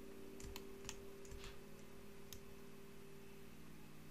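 Faint clicks of a computer mouse, about five in the first half, over a steady low hum.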